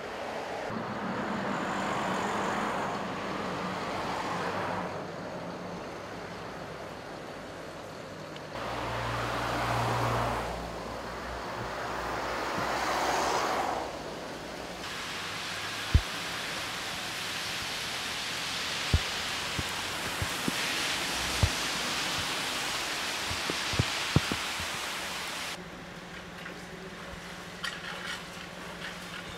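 Cars passing one after another on a wet motorway, tyres hissing on the water, each pass swelling up and fading away, with a few sharp clicks in between. Near the end the sound changes to a steady low engine hum.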